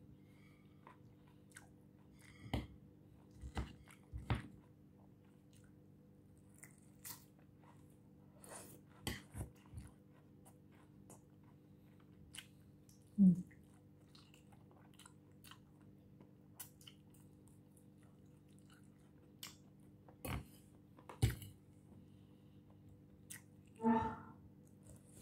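Close-up eating sounds: irregular crunches of chewing lettuce salad and chicken, with light clicks of a fork on the plate. A brief voiced sound comes near the end.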